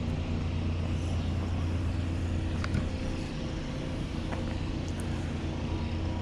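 A steady low engine rumble with a constant hum and an even noise bed, with a couple of faint clicks.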